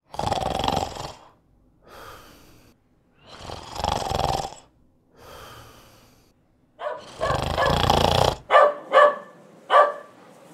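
A person snoring loudly: a rasping in-breath about every three and a half seconds with a quieter out-breath between, then a longer snore and several short snorts near the end.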